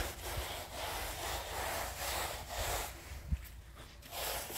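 Rubbing strokes of a wide brush and a hand float worked over a freshly plastered wall, heard as a few swells of soft scratchy noise. A brief low thump a little past three seconds in.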